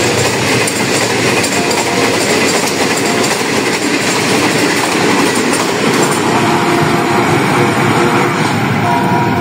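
Passenger coaches of the Green Line Express passing at high speed close by: a loud, steady rush of steel wheels running on the rails.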